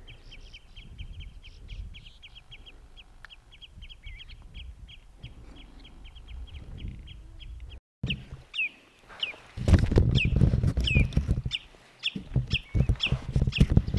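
A bird calling in a rapid, steady run of short high notes, about four a second. After a cut about eight seconds in, wind buffets the microphone while a bird gives sharp, downward-falling calls about once a second.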